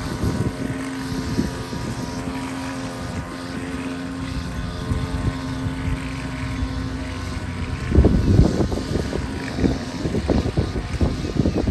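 A small gas engine drones steadily at a constant pitch. About eight seconds in, gusty rumbling of wind on the microphone takes over.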